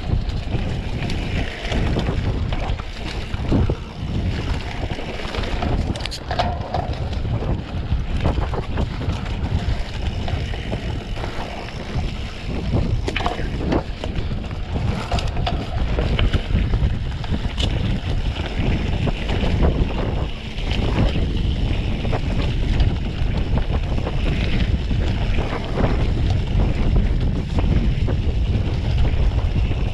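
Wind buffeting the microphone with a steady low rumble as a mountain bike rides fast down a dirt forest trail. Scattered clicks and knocks come from the bike jolting over the rough ground.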